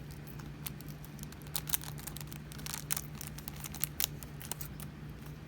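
Small resin diamond-painting drills being shaken out of a cut-open plastic bag: irregular light clicks as they drop into a plastic storage container, with crinkling of the bag. A steady low hum runs underneath.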